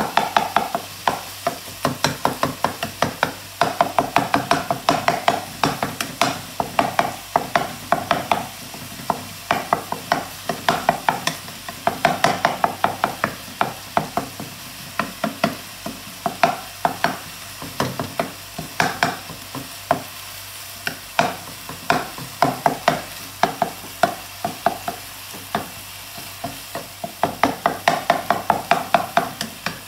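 A spatula stirring and scraping in a pan of frying shredded pork ham, in quick runs of knocks with short pauses, over a steady sizzle.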